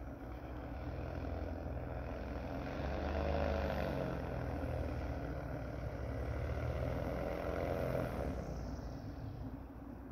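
Paramotor's Vittorazi Moster 185 single-cylinder two-stroke engine and propeller droning in flight as it passes low. The drone grows louder with its pitch bending up and down in the middle, then gets quieter after about eight seconds in.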